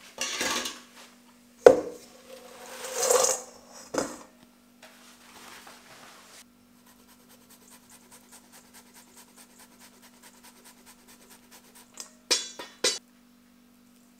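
A wire fry basket and stainless steel bowl clattering as fries are tipped in, with a sharp clank and a scrape in the first few seconds. Then comes faint, even rasping, about three strokes a second, as cheese is grated over the bowl. Two short clatters come near the end.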